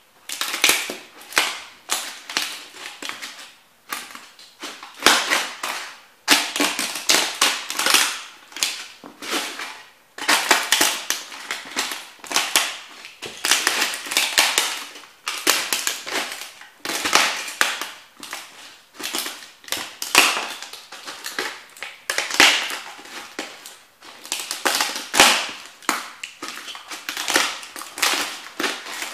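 Model toy train houses cracking, snapping and crunching to pieces under the soles of rubber thermo boots, in repeated stomps and grinding steps. The cracks come in bursts every second or two.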